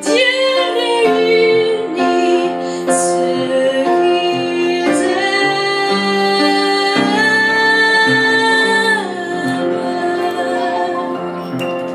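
A woman singing a French chanson with upright piano accompaniment. She holds a long note about seven seconds in, and the piano carries the closing chords near the end.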